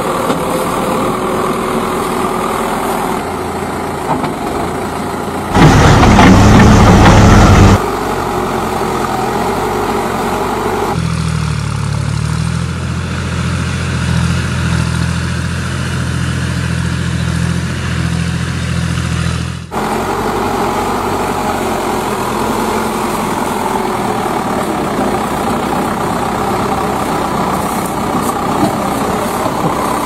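Heavy-vehicle engine sounds laid over toy models, switching abruptly several times. An engine runs, then there is a louder, harsher stretch of about two seconds around six seconds in. From about eleven seconds to twenty seconds comes a low, steady idle, and then the engine runs again.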